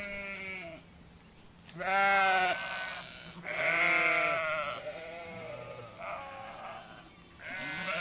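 Sheep bleating: a series of wavering baas, each about a second long, one after another.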